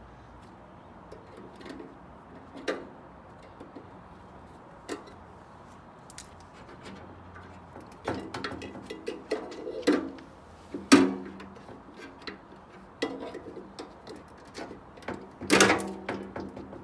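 Scattered metal clicks and knocks from hand tools working on a microwave's sheet-steel chassis and magnetron mount. They grow busier about halfway through, with a few louder ringing clanks, the loudest about eleven seconds in and another near the end.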